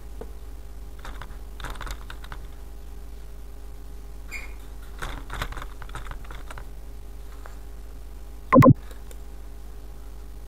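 Computer keyboard keys tapped in two short runs as a seven-digit verification code is typed in, over a faint steady hum. Near the end comes one short, loud buzzing blip.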